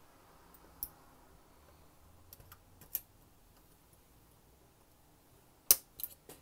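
Scattered sharp clicks and taps of a hobby knife cutting plastic model-kit parts off their sprue on a cutting mat, a few single clicks and then a quick cluster near the end, the loudest of them there.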